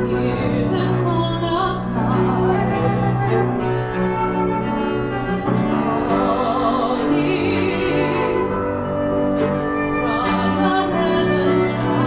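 Classical chamber ensemble playing a contemporary art song, bowed strings (violin, viola, cello and double bass) to the fore with piano, holding sustained lines with vibrato.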